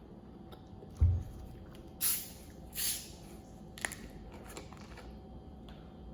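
A Fresca soft drink being picked up and opened for a first taste: a dull thump about a second in, then two short hissing sounds a little under a second apart, and a sharp click near the four-second mark.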